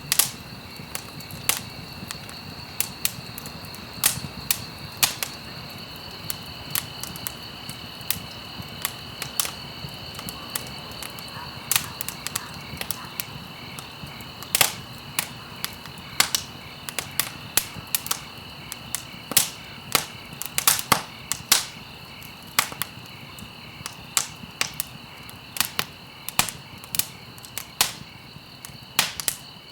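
Wood fire crackling in a fireplace: irregular sharp pops and snaps over a steady low hiss of the flames, with a faint steady high-pitched tone underneath.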